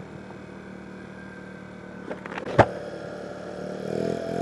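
Kymco Agility 50 scooter engine running at low revs on a dirt path, with a sharp knock about two and a half seconds in; near the end the engine note rises as it picks up.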